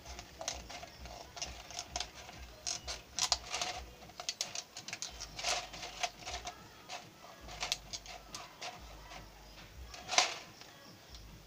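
Clear plastic soda bottle crackling and clicking in irregular snaps as it is cut with scissors and handled, with one louder crackle about ten seconds in.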